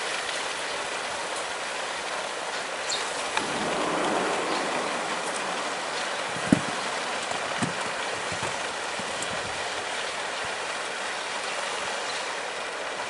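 Steady rushing noise that swells briefly about four seconds in, with two short knocks past the middle.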